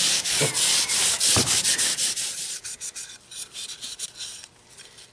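Scotch-Brite abrasive pad scrubbed in quick back-and-forth strokes over anodized aluminium rifle parts, a scratchy rubbing that is loud for about two seconds and then quieter. The parts' finish is being scuffed dull so the spray coating will adhere.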